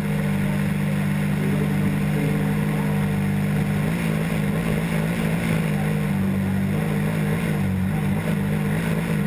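RC airplane's motor and propeller running steadily, close up from the onboard camera. The pitch wavers a little from about four seconds in as the throttle changes.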